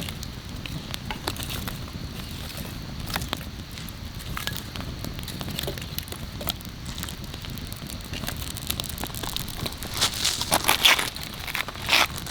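Campfire crackling, with scattered pops and a run of louder crackles and snaps near the end.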